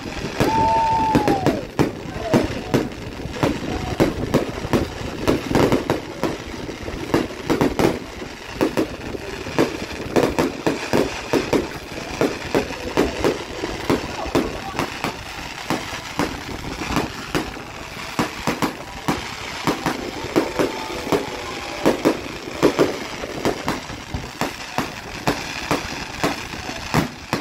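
Aerial fireworks bursting and crackling, many sharp bangs in quick, irregular succession.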